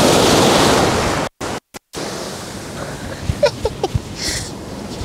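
Ocean surf breaking and washing up a sandy beach, with wind, loud for the first second or so. The sound cuts out briefly about a second and a half in, then comes back as a quieter wash of surf with a few short chirps and ticks.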